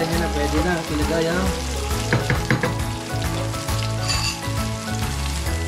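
Sliced onion, garlic, ginger and green chili sizzling steadily in hot olive oil in a nonstick pan, with a wooden spatula stirring and tapping against the pan now and then.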